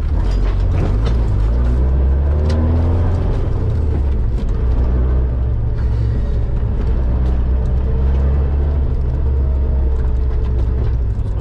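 Off-road competition vehicle's engine running under load over a rough dirt track, heard from inside the caged cabin: a steady low drone with the revs climbing in the first few seconds, and scattered knocks and rattles.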